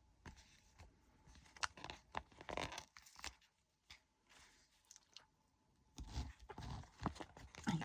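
Small plastic bags of diamond painting drills being handled, giving intermittent crinkling and light clicks in two short spells, about a second and a half in and again about six seconds in.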